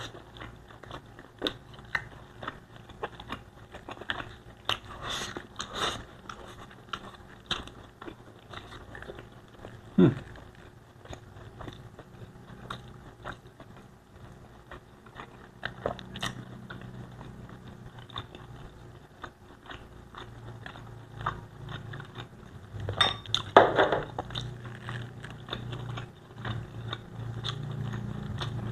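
Close-up chewing and biting of pork Bicol Express with rice, a steady run of small mouth clicks with a few louder ones along the way.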